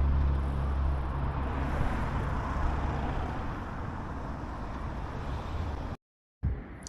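Road traffic going by: a motor vehicle's low engine hum, then its tyre noise fading away. The sound cuts out abruptly near the end.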